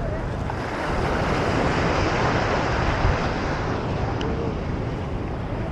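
Wind buffeting the microphone with a low rumble, under a broad rushing noise that swells about a second in and eases after a few seconds. Faint distant voices come through.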